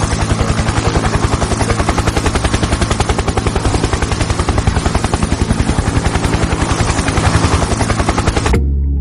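Helicopter rotor chopping in a fast, steady beat of pulses over a rushing whine, cutting off suddenly near the end.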